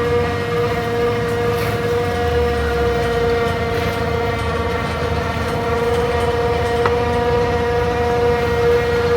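Heavy farm machinery running steadily, with a strong steady high whine over a low rumble.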